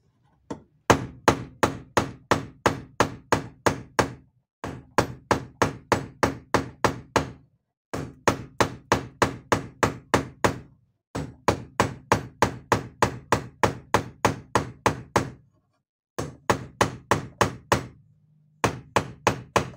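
Hammer striking the heated shuttle-drive rack of an Adler shoemaker's sewing machine in quick runs of blows, about four a second, with short pauses between runs: the rack is being peened to stretch it by about a millimetre.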